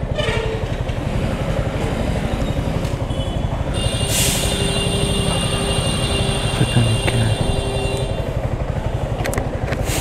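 Yamaha R15M motorcycle's single-cylinder engine running at low revs, a fast, even throb. A high thin whine joins from about four seconds in and stops about eight seconds in, and a few sharp clicks come near the end.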